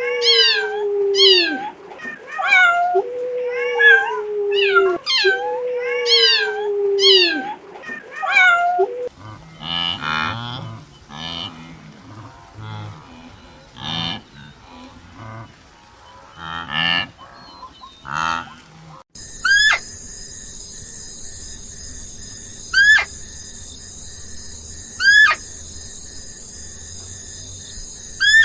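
Recorded animal calls from several different animals in turn: first a string of falling, pitched cries, then rougher, lower calls in short pulses, then a few sharp downward chirps over a steady hiss.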